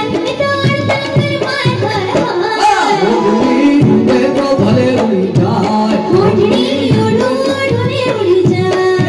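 Live Indian folk song performed through a PA: a man sings into a microphone, accompanied by a steady tabla and dholak rhythm and electronic keyboard.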